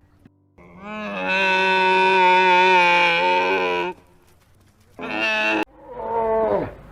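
Animal calls: one long, steady call lasting about three seconds, then a short call and a call that falls in pitch, each cut off abruptly.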